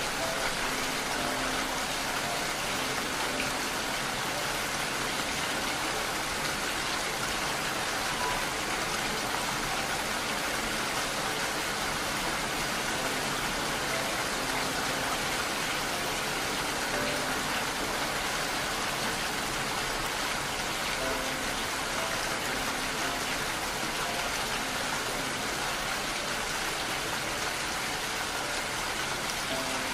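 Steady, even rain: a dense hiss of many drops that does not let up. Faint soft tones sound now and then underneath.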